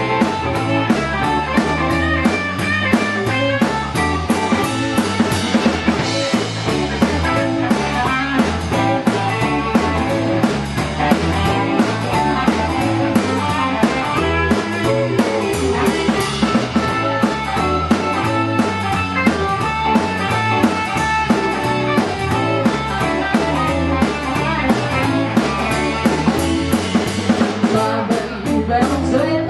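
Live band playing an electric blues number: two electric guitars over a drum kit keeping a steady beat, in a mostly instrumental stretch with no singing.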